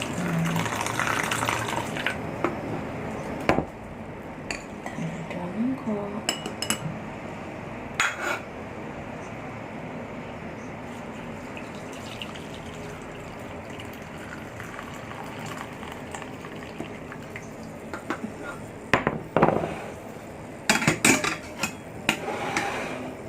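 Kitchenware being handled while a hot herbal decoction is strained into bowls. Liquid pours in the first few seconds, and pot, bowls and utensils knock and clink now and then, with a cluster of clinks near the end.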